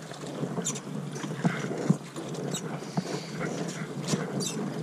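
Drift boat being rowed to hold it in the current: water rushing and slapping around the hull and oar blades, with irregular knocks and clicks from the oars working in their oarlocks.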